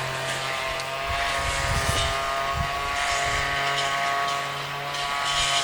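Steady mechanical hum made of several fixed tones, like a running motor, with irregular low rumbles from wind on the microphone.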